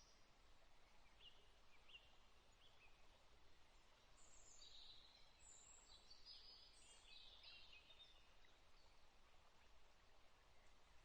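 Faint forest ambience of small birds chirping and calling over a low, steady hiss. A few short single chirps come first, then a busier run of calls about four to eight seconds in.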